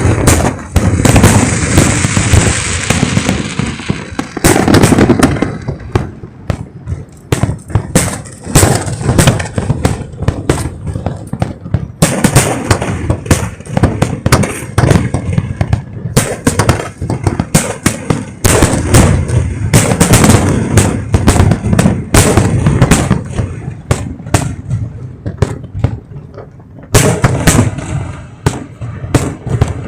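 Aerial fireworks shells bursting at close range in rapid, continuous succession: many sharp bangs, several a second, with stretches of crackle between them.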